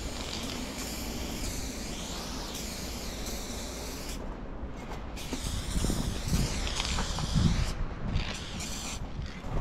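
Aerosol spray paint can spraying onto a train car's metal side in long hissing passes, breaking off briefly about four seconds in and again near the end. A low rumbling runs under the second half.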